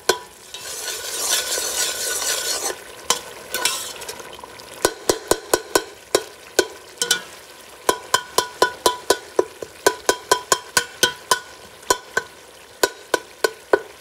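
Metal spoon stirring a tomato-and-spice masala frying in a stainless steel pot, with a sizzle loudest in the first few seconds. After that, quick metallic clinks of the spoon against the pot, about two to three a second, as the masala is fried until the tomatoes soften.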